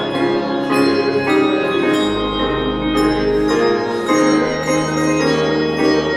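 Hymn music with handbells ringing steady chords over a sustained accompaniment with a deep held bass that shifts every couple of seconds.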